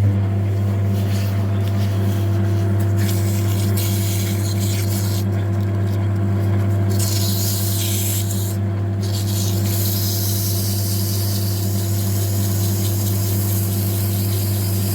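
Lathe running with a steady hum while emery cloth is held against the spinning aluminium piston's combustion bowl. It makes a hissing rub that comes and goes as the bowl surface is polished and sharp corners are taken off.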